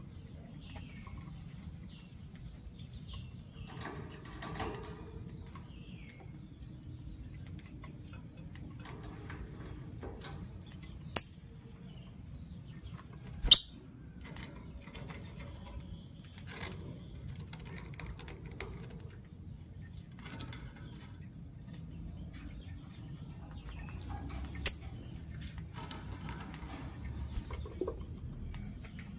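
Lovebirds in a cage: three loud, very short high-pitched chirps spread through, with soft chattering and brief wing flutters between.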